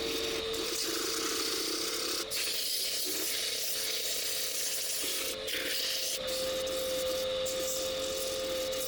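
Wood lathe running with a steady whine, while the spinning wood is worked with a rough, continuous hiss that breaks off briefly a couple of times. The whine steps up slightly in pitch about six seconds in.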